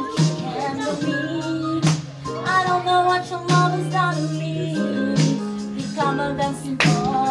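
Karaoke pop track with a steady drum beat and held bass notes, with a voice singing the melody over it.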